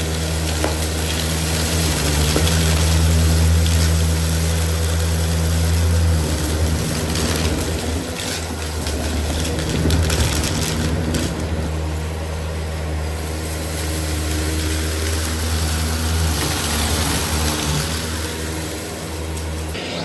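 Shark PowerDetect Pet upright vacuum cleaner running on carpet: a steady motor hum under a rush of air as it sucks up lint and dust, swelling and easing a little as it is worked along the carpet.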